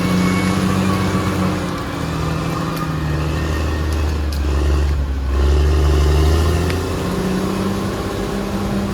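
Caterpillar D6R XL bulldozer's diesel engine running under work load. Its low drone steps down in pitch about two and three seconds in and rises again near seven seconds, with a few faint clanks over it.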